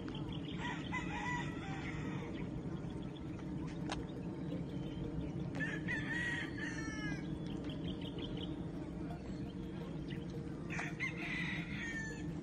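A rooster crowing three times, about five seconds apart, each crow a held call that falls away at the end, over a steady low rumble of the ride.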